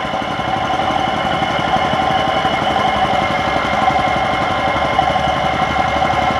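Engine running steadily with a dense, rapid rattle and a steady drone.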